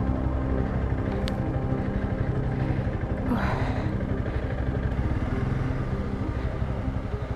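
Honda CRF300 Rally's single-cylinder engine running steadily at low revs in second gear as the motorcycle creeps forward at walking pace. A brief rush of noise about three seconds in.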